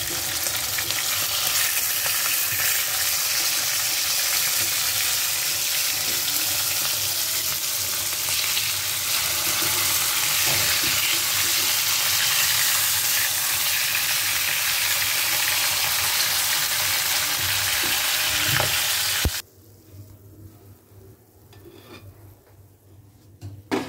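Rui (rohu) fish steaks sizzling in hot oil in a karahi, a loud steady hiss, with a steel spoon now and then knocking and scraping the pan as the pieces are turned. The sizzle cuts off suddenly near the end, leaving only faint clicks.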